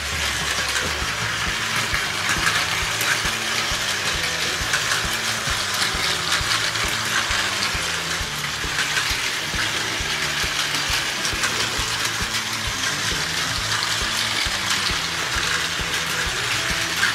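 Several battery-powered Plarail toy trains running together on plastic track: a steady whir of their small motors and gearboxes, with rapid clicking of wheels over the track joints.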